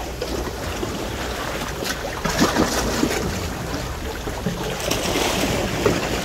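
Sea waves washing and splashing against a concrete ledge at the water's edge, with wind blowing across the microphone.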